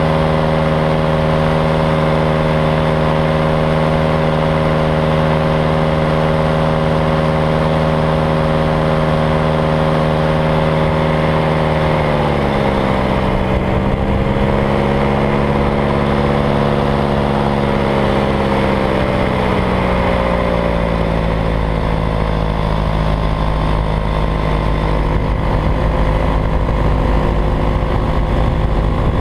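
Paramotor's small two-stroke engine and propeller running steadily at cruise throttle, throttled back about twelve seconds in so the pitch drops, then easing off further later on. In the last third, wind rushing over the microphone covers the engine.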